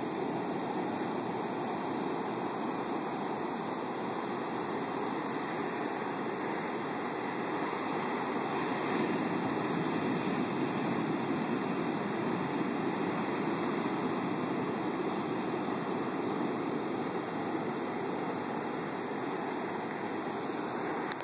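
Big storm-surge waves breaking and washing up a sandy beach: a steady rushing wash of surf that swells a little around the middle as a bigger wave breaks and runs in.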